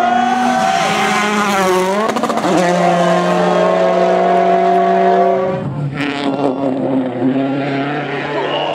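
Rally car engine at high revs. Its pitch dips and climbs again about two seconds in, holds steady, then falls away as the sound gets quieter, with a sharp crack about six seconds in.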